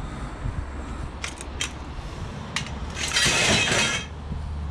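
Long metal tubes knocking and clinking as they are handled, then a loud scrape lasting about a second near the end as they slide into the back of a van.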